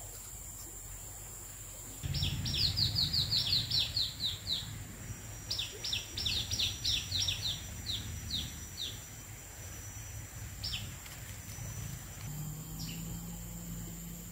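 A bird calling in two quick runs of short, sharply falling notes, about five a second, then a couple of single notes. A steady thin high-pitched whine runs underneath.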